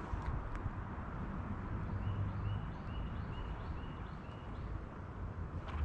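A bird calling faintly in a run of short, repeated chirps, about three a second, over a steady low rumble.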